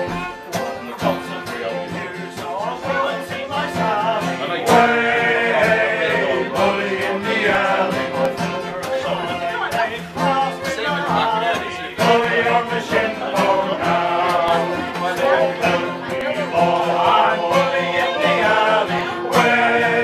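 Male shanty choir singing a sea shanty with fiddle and acoustic guitar accompaniment; the music gets louder about five seconds in.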